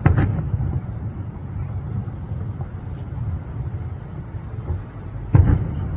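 Distant aerial firework shells bursting: a boom right at the start and another about five and a half seconds in, with a low rumble between them.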